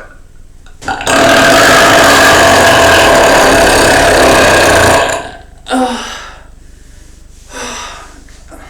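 A man's deliberate belch, forced out after gulping air into the chest: one very loud, unbroken belch lasting about four seconds. It is followed by two short, quieter sounds about two seconds apart.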